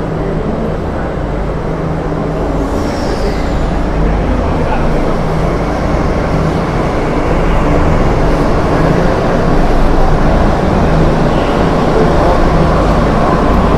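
Delhi Metro train pulling into an underground station and running past, a steady rumble that grows slowly louder. A brief high squeal comes about three seconds in, and a falling whine near the end.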